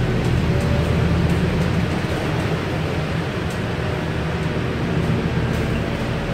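Scania N230UD double-decker bus under way, heard from the upper deck: its five-cylinder diesel engine runs with a steady low hum over road noise.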